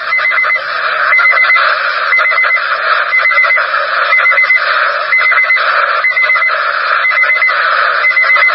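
Weather radio receiver's alert alarm going off for an incoming warning: a quick group of four high beeps repeating about once a second, over a steady hiss of radio static.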